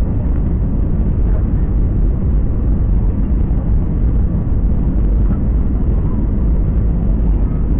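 Steady, loud low rumble of a jet airliner heard from inside the passenger cabin: engine and airflow noise with no distinct events.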